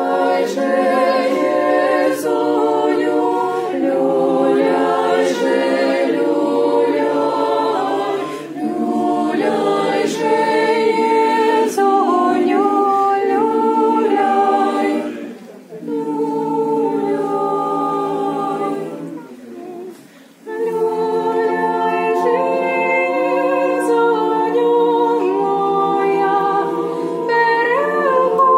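A parish choir singing a Ukrainian Christmas carol (koliadka) a cappella in several parts, held chords moving phrase by phrase, with two brief breaks between phrases a little past the middle.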